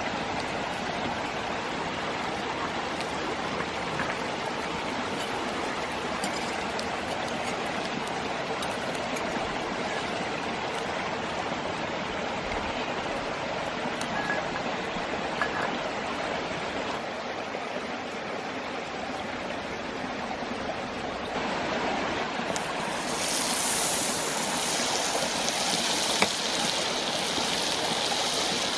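Mountain stream flowing steadily over rocks. About two-thirds of the way in the water sound becomes brighter and a little louder.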